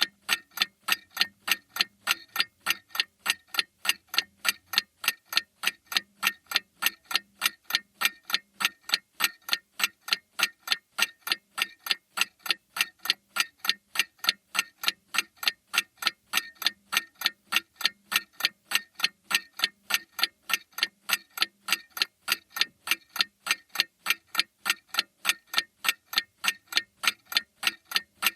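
Mantel clock ticking steadily, about three even ticks a second.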